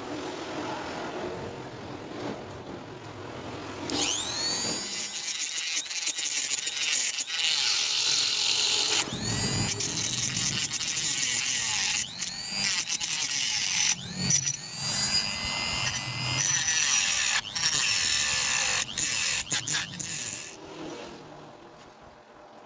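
Electric power tool cutting or grinding into material with a high screech. It starts quietly, becomes loud about four seconds in, breaks off and restarts several times, and dies away near the end.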